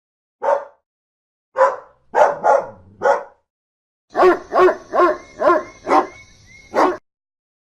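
Dog barking: a single bark, then four barks in a loose group, then a quicker run of five barks, about two and a half a second, and one last bark near the end.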